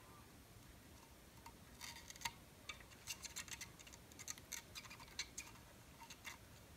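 Molten solder crackling and spitting under the tip of a Mastercraft 25-watt soldering iron on a speaker wire terminal: a faint, irregular scatter of sharp little ticks from about two seconds in until near the end.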